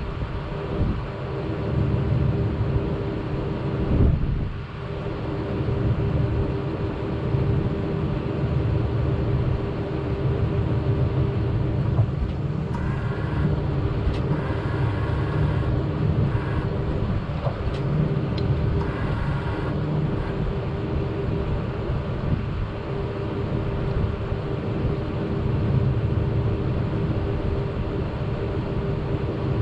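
A motor vehicle's engine running steadily with a low, continuous drone. A fainter, higher patterned sound comes and goes for several seconds in the middle.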